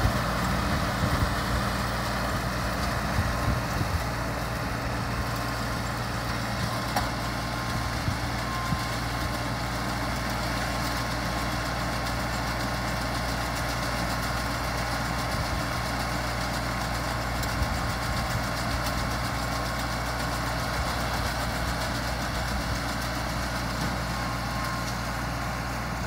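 Compact tractor engine running steadily under load, driving a mini round baler that is baling hay, with a faint steady whine above the engine hum.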